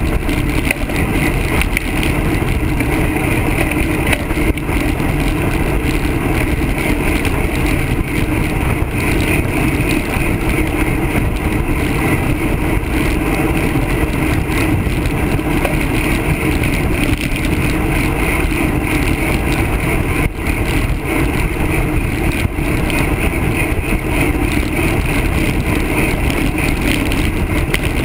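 Steady wind rush buffeting a handlebar-mounted camera's microphone, mixed with road noise from a bicycle rolling at speed on asphalt.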